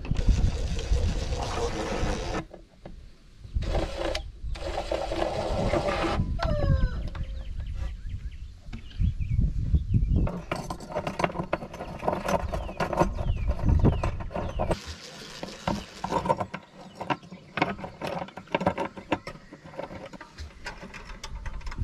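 A DeWalt cordless drill running in short bursts, driving screws into a wooden box, with two runs in the first six seconds and more later on. Between runs there are clicks and knocks of parts being handled.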